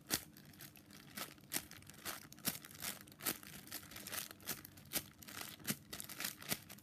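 Clear plastic bag crinkling in short, irregular crackles as fingers squeeze and handle a bun-shaped foam squishy toy wrapped in it.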